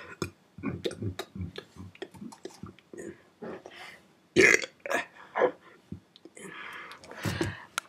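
A man burping: a string of short belches and throat noises, the loudest about halfway through.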